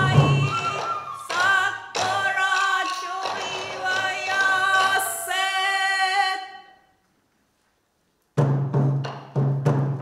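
Traditional Japanese folk performance music: a sung vocal line over low drum beats, fading out about seven seconds in. After a second and a half of silence, a run of heavy drum strikes begins.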